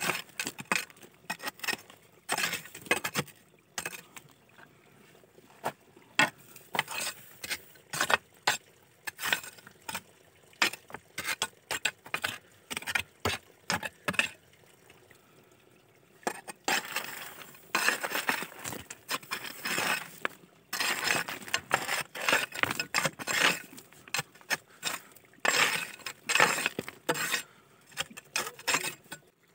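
Stones and soil being raked and dropped into a hole in rocky ground: an irregular clatter of stones knocking and clinking together, with longer stretches of gritty scraping a little past halfway and again near the end.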